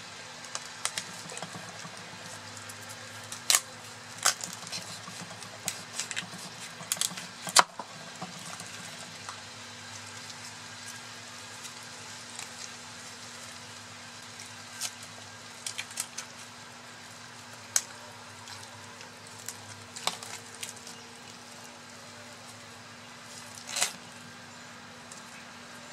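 Large fillet knife cutting through a yellowtail snapper on a wooden board: scattered sharp clicks and knocks as the blade works through bone and meets the board, the last and biggest near the end as the head is cut off. A steady low hum runs underneath.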